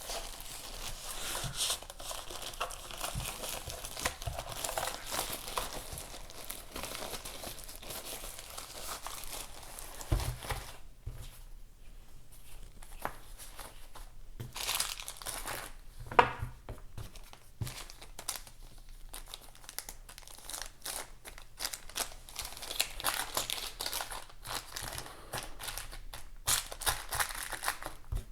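Packaging being handled: wrapping crinkling and tearing, with small knocks throughout and a sharper knock about 16 seconds in.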